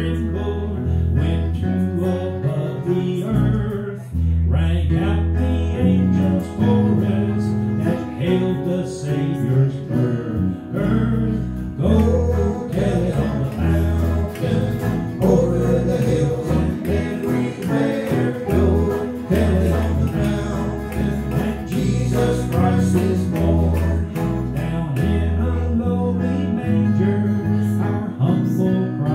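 Live country gospel band playing, with strummed guitars over a bass line that changes note every half second or so, and singing.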